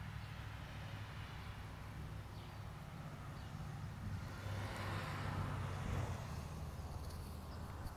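A vehicle passing on a nearby road: its tyre and engine noise swells and fades between about four and a half and six and a half seconds in, over a steady low rumble.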